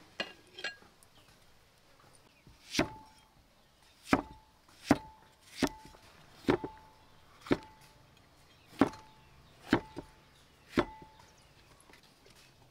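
Cleaver chopping a red bell pepper on a thick wooden chopping block: about nine sharp knocks, roughly a second apart, each with a brief ring.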